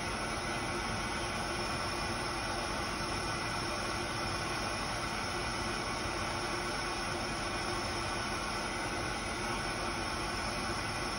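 Handheld propane torch burning with a steady hiss as its flame heats aluminum for brazing.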